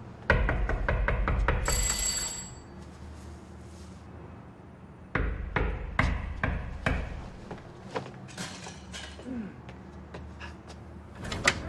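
A quick run of sharp knocks and clicks over a low rumble, starting suddenly about a third of a second in, with a brief high ringing tone about two seconds in. A second burst of knocks starts about five seconds in, and scattered single clicks follow.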